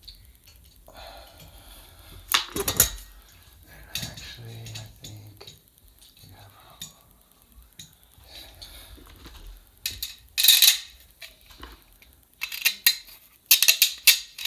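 Loose metal hardware clinking and rattling in several short bursts, loudest about two and a half seconds in, around ten seconds in and near the end: the bolts and metal mounting parts of a ceiling fan being handled and fitted to the fan box.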